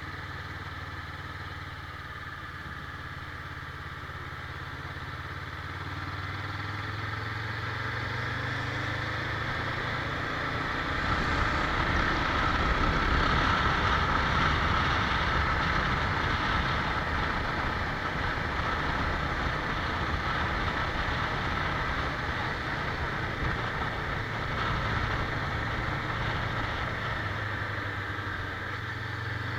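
Motorcycle engine running on the road, at first a low steady note, then rising in pitch as it speeds up from about six to ten seconds in. After that it is louder, with a steady rush of wind and road noise.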